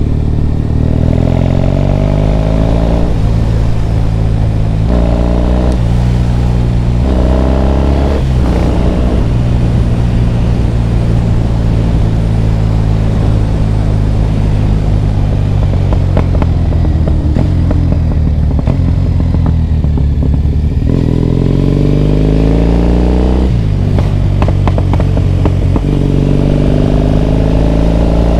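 Triumph Bonneville T100's parallel-twin engine pulling through the gears under way: the pitch rises and drops back at each upshift, several times in the first nine seconds. It then holds a steady cruising note that sags a little before more upshifts near the end.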